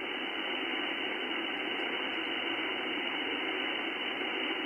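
Icom IC-7610 HF receiver hissing steadily with band noise on an empty 20-metre frequency, cut off below and above the narrow SSB receive passband. The noise sits at about S5 to S6 and is the unexplained raised noise floor that is being tracked down.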